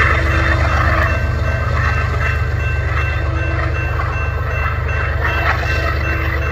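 BNSF diesel-electric locomotive leading a loaded-style covered hopper grain train, engine running with a steady deep rumble as it approaches, with wheels rolling on the rails and steady high-pitched ringing tones above.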